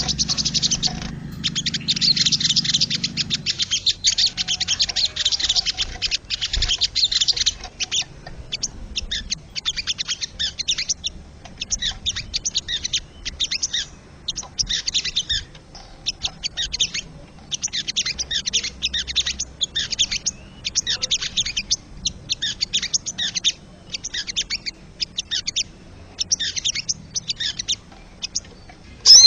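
Sogon (crested jay) calling: a long series of rapid, rattling chatter phrases, high-pitched, each lasting about a second with short pauses between them.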